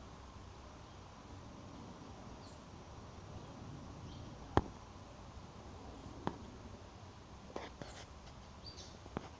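A caged blue-black grassquit (tiziu) giving a few short, faint high chirps, with three sharp clicks, the loudest about halfway through, over low background noise.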